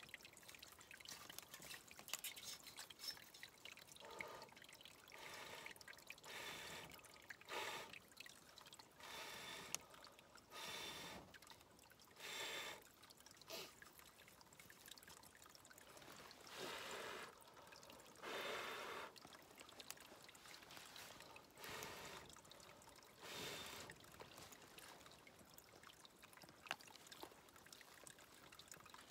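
Small stream trickling steadily and faintly, with a string of short hissing bursts every second or two from about four seconds in.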